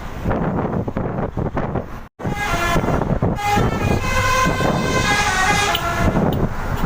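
Bus telolet horn playing a tune of stepped tooting notes, starting about two seconds in and running most of the rest of the way, over road traffic noise.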